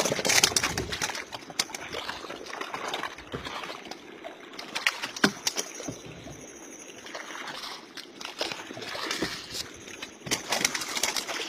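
Water sloshing and splashing against a small wooden boat, with scattered sharp knocks and slaps.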